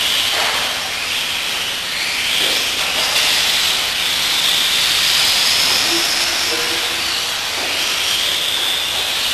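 Several electric 1/10-scale RC off-road buggies racing: a steady high hiss and whine of their motors and gears that rises and falls as the cars speed up and slow down.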